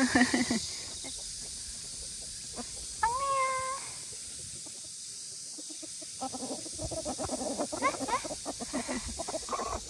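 Domestic chickens calling: one drawn-out meow-like call about three seconds in, then a run of short clucks and chirps through the second half, over a steady high hiss.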